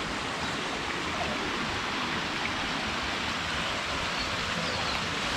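Steady rush of flowing water from a spring pool's outflow spilling over a low weir into a stream.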